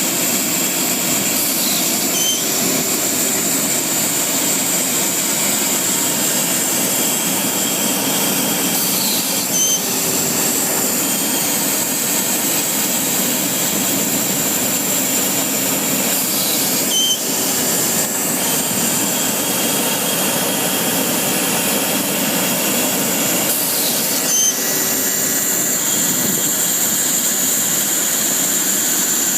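LeRoi air compressor running steadily, a loud machine noise with a strong high hiss. A short high tone recurs about every seven seconds, four times in all.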